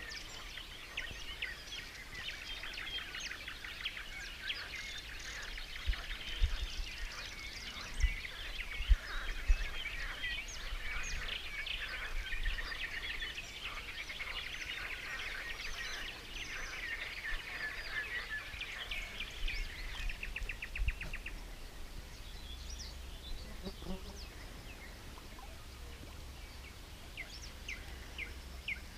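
Dawn chorus of many small songbirds: dense overlapping chirps and trills, including one fast even trill about twenty seconds in, thinning out after that. A low rumble with a few soft thumps runs underneath.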